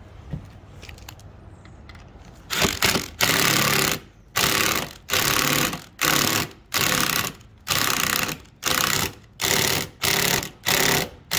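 Cordless impact driver hammering in about a dozen short bursts, roughly one a second, starting a couple of seconds in, as it drives screws into the aluminum roof-to-sidewall rail. The screws had backed out of slightly stripped holes and are being tightened down or swapped for larger #12 screws.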